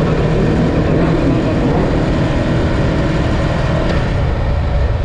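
Aprilia Tuono V4 Factory's V4 engine running loud at fairly steady revs, heard from onboard the motorcycle on track.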